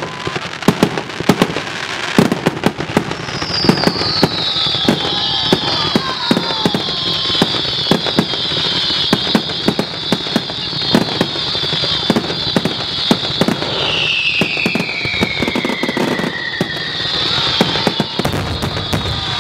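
Fireworks display: a rapid run of sharp bangs and crackling reports, with a high whistling hiss that glides down in pitch, once about three seconds in and again about fourteen seconds in.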